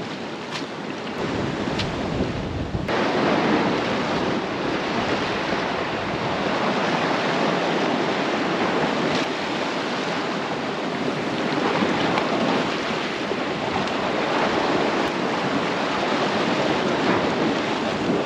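Sea surf washing and breaking over shoreline rocks, a steady rushing wash, with wind buffeting the microphone.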